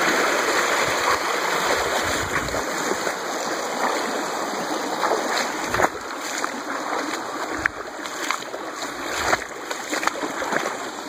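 Water sloshing and splashing around legs wading through deep creek water, with sharper splashes in the second half.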